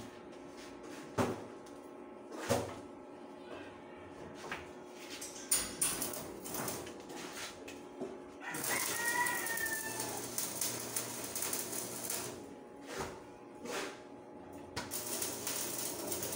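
Arc welding on a metal stair railing: a steady hiss of the arc in two runs, from about eight and a half to twelve seconds and again from about fifteen seconds on, with a few sharp metal knocks before the first run. A rooster crows faintly about nine seconds in.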